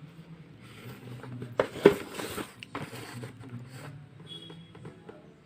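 Packaging of a speaker set being handled during unboxing: rustling and scraping, with several clicks and a sharp knock about two seconds in. A faint steady low hum lies underneath.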